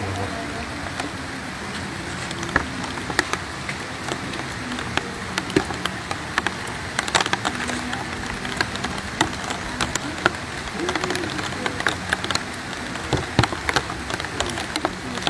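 Steady heavy rain, a continuous hiss with many sharp taps of drops landing close by.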